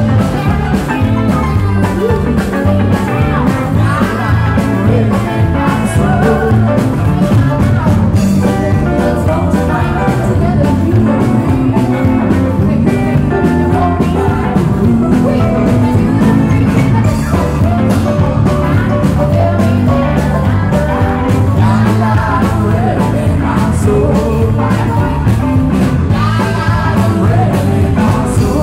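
Live band playing with a woman singing lead into a microphone: guitar and keyboard over a steady beat.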